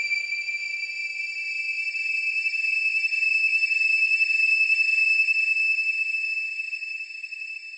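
Sound-art drone: a high, steady, buzzing whine with overtones, swelling a little in the middle and fading toward the end.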